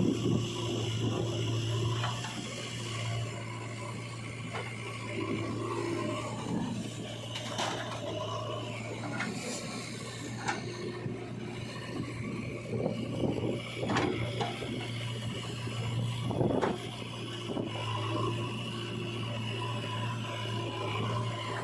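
JCB 3DX backhoe loader's diesel engine running steadily, with irregular scraping and knocking as its bucket works the mud; a few sharper knocks come around the middle and again about two-thirds of the way through.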